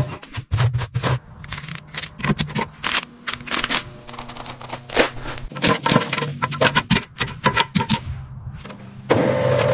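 Hand tools clicking and knocking on metal, rapid and irregular, over a steady low hum; a denser rush of noise starts about nine seconds in.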